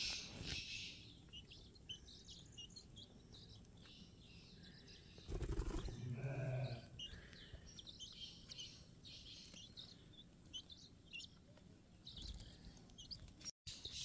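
Black francolin chicks peeping, with many short, high chirps scattered through the time. A louder burst of rustling noise comes about five seconds in.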